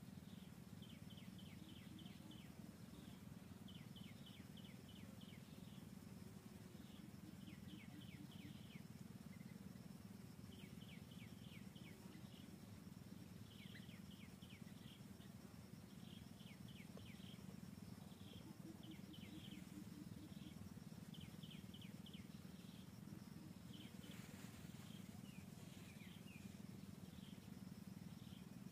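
Faint forest ambience: quick series of high chirps, a handful of notes each, repeating every second or two over a low steady hum.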